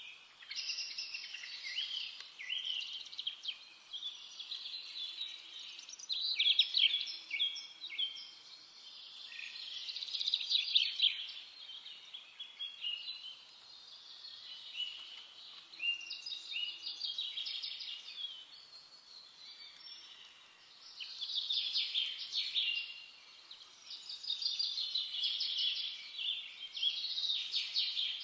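Many small birds chirping and chattering at once, a dense chorus that swells and eases every few seconds.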